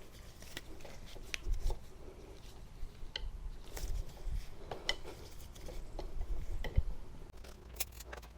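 Faint, scattered clicks and knocks of a hand bead-breaker tool working a motorcycle tire's bead down off the wheel rim.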